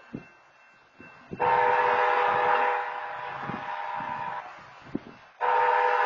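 BNSF locomotive air horn sounding two long blasts, the opening of the long-long-short-long grade-crossing signal for an approaching train. The first blast comes in about a second and a half in and drops in level partway through; the second starts near the end.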